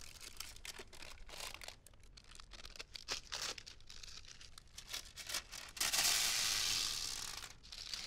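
Parchment paper rustling and crinkling as a slab of honey-almond nougat (torrone) is lifted from its pan by the paper, then a longer, louder peeling rip for almost two seconds, starting about six seconds in, as the paper is pulled off the sticky nougat.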